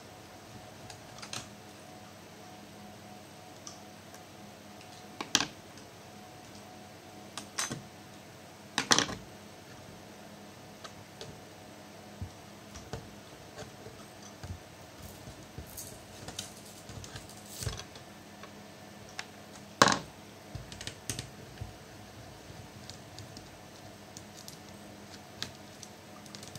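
Irregular light clicks and taps of laptop plastic and small parts being handled during disassembly, with a few sharper knocks, the loudest about 20 seconds in.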